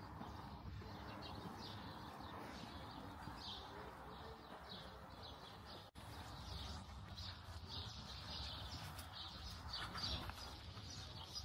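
Faint outdoor ambience with scattered high bird-like chirps, broken by a momentary dropout about six seconds in.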